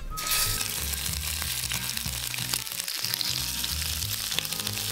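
Whole raw shrimp sizzling in hot olive oil in a frying pan, the sizzle starting suddenly as they are laid in and then holding steady.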